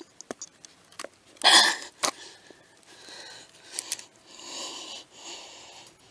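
A man's breath noises, a short sharp huff and later a longer breathy exhale, with small clicks and knocks from handling as he works a hook out of a bass's mouth.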